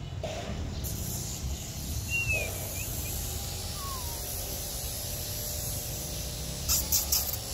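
Outdoor background of a low steady rumble with a few short bird chirps, about two seconds in and again about four seconds in. A few brief scratchy rustles come near the end.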